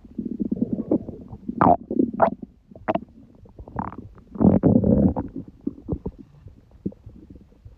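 Human stomach gurgling: irregular bubbly crackles with a few short squeaky notes in the first four seconds, then a longer, louder gurgle about four and a half seconds in, fading back to faint crackles.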